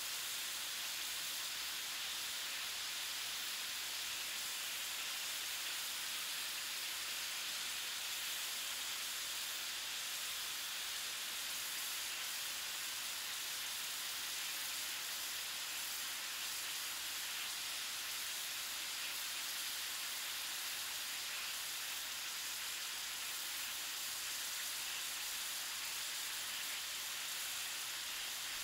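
Stovetop sizzle: food frying on a hot stove, a steady, even hiss.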